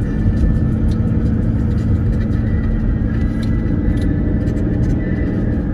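Mercedes car driving, heard from inside the cabin: a steady low rumble of engine and tyres on patched, uneven tarmac.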